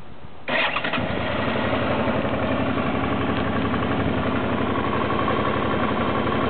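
Suzuki DL650 V-Strom's V-twin engine started about half a second in, catching almost at once and settling into a steady idle.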